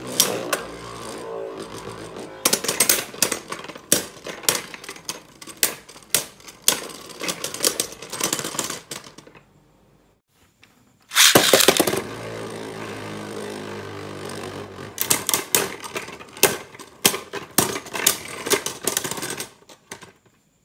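Beyblade Burst spinning tops whirring and rattling on a plastic stadium floor, clashing with rapid clacking hits. The sound dies away about nine and a half seconds in, and after a short silence a new launch starts another round of whirring and clashing.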